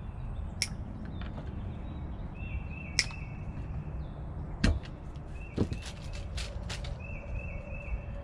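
Sharp clicks and taps of small plastic and metal parts being handled as the wires and mounting base of a boat anchor light are worked, the loudest about three seconds and nearly five seconds in. Short, repeated high chirps of a bird sound behind them over a steady low rumble.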